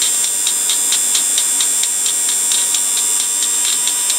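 Stripped-down blender motor and gear assembly running on a low-voltage supply, a steady high-pitched whir with a regular tick about three times a second.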